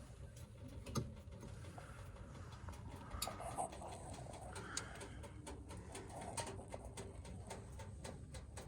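Faint cooing of a dove, a few soft low calls, with scattered light clicks and knocks from handling.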